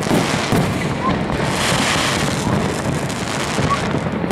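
Large fireworks display: many shell bursts and crackles overlapping into a steady, unbroken barrage.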